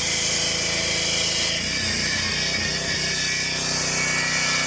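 Gas pressure washer's Honda engine running steadily, working without trouble; its sound shifts about a second and a half in.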